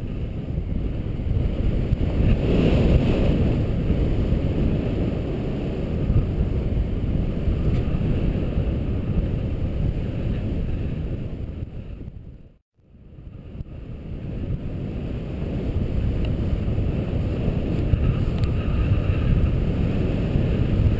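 Wind noise on the microphone of a pole-mounted camera on a paraglider in flight: a steady low rushing. It cuts out for a moment about halfway through, then fades back in.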